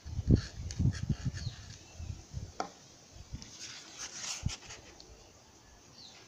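Irregular low bumps and knocks of hands and objects on a wooden table, loudest in the first couple of seconds, then a brief rustle of stiff EVA foam sheets being picked up and handled, with one more bump after it.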